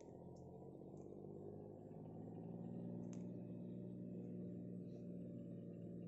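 Faint low drone of several steady tones held together, growing slightly louder about two seconds in, with a few faint high ticks.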